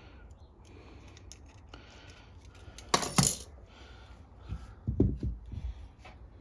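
Small metal clinks and taps of carburetor parts and tools being handled during a carburetor cleaning, with a louder sharp clink about three seconds in and a few duller knocks about five seconds in.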